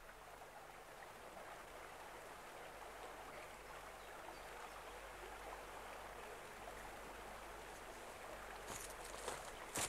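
Faint steady rushing noise, like flowing water, with a few scuffs and clicks near the end as people scramble down an overgrown bank.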